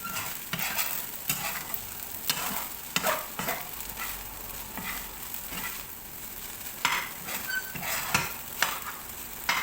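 Fried rice sizzling in a hot pan while a spatula stirs and tosses it, with irregular scrapes and clacks of the spatula against the pan.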